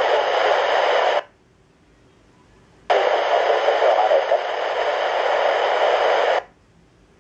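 Air-band radio scanner opening on a transmission with nothing but loud hissing static, which cuts off abruptly about a second in as the squelch closes; a second burst of static opens near the three-second mark, lasts about three and a half seconds, then cuts off just as sharply.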